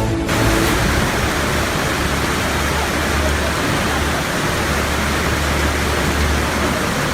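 Loud, steady rushing noise with a low rumble underneath, without pitch or rhythm. A stretch of music cuts off just as it begins.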